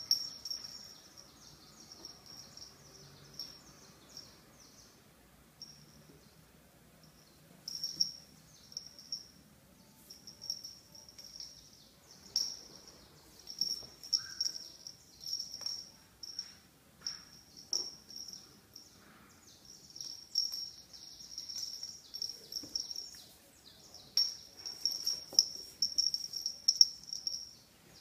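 Insect chirping: a high, even-pitched trill pulsing in spells of about a second with short gaps between them, with a few faint clicks now and then.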